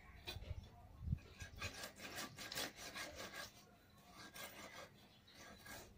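Faint, irregular scraping and rubbing strokes, with a low bump about a second in.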